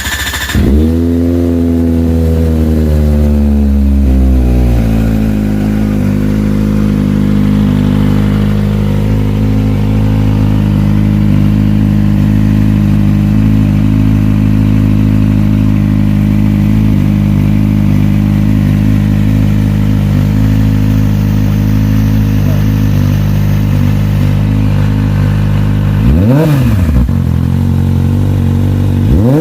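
Kawasaki ZX-25R's 249 cc inline-four, fitted with a Leo Vince GP Corsa short carbon-fibre slip-on exhaust, starting up. Its revs fall and settle over the first few seconds, then it idles steadily. Near the end the throttle is blipped twice in quick revs.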